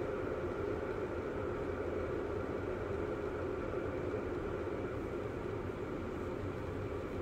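Glass electric kettle heating water as it comes up to the boil: a steady rushing, bubbling noise from the heating plate.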